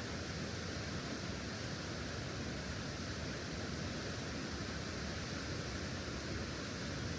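Steady rushing noise: an even hiss with no distinct events.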